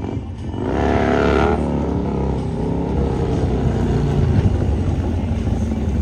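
Harley-Davidson V-twin motorcycle engine revved hard, rising sharply about half a second in. It then runs loud and steady under throttle while the bike is held up on its rear wheel in a wheelie.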